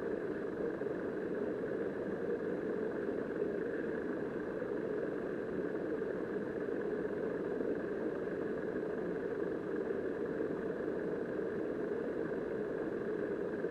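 Steady, muffled rush of river current heard through an underwater camera.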